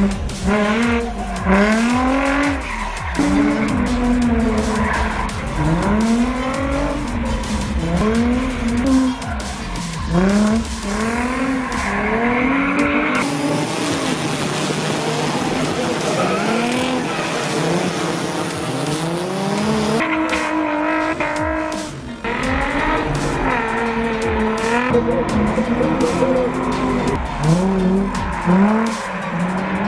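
Nissan 350Z drift car's engine revving up and falling back about once a second as it slides, with tyres squealing. For several seconds in the middle, a steady tyre screech takes over from the revs.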